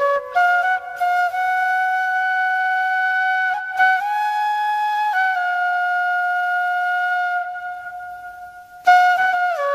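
Solo flute playing a slow melody of long held notes with small steps in pitch; a note fades out and a new, louder falling phrase begins about nine seconds in.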